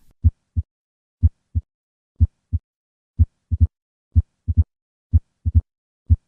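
Heart sounds, first and second sounds (S1 and S2) at about 60 beats a minute, as short low thumps in pairs. About three seconds in, a third short sound follows closely after each second sound: the opening snap of mitral stenosis.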